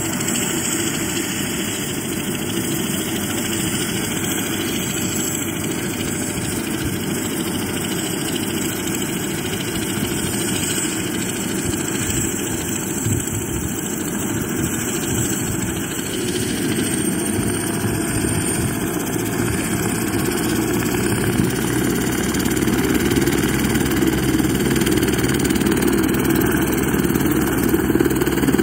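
Eurocopter AS350 B3 Écureuil helicopter running on the ground: a steady rumble of engine and rotor with a thin high turbine whine on top, growing a little louder after about twenty seconds.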